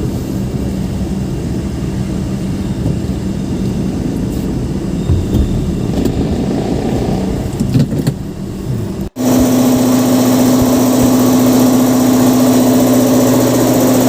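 Honda Civic engine running steadily at low speed as the car is driven in. After an abrupt cut about nine seconds in, a louder, steady machine hum with a strong low drone.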